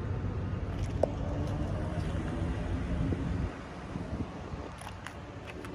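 A heavy vehicle engine rumbling, dropping away about three and a half seconds in, with a few faint clicks.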